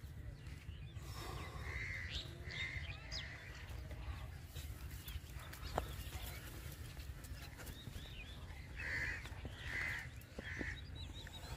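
Birds calling outdoors: short calls in two groups, two near the start and three near the end, over a steady low rumble. A single sharp click about six seconds in.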